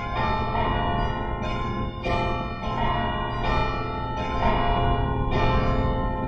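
Church bells ringing a peal, a new bell struck a little under every second, each ringing on under the next.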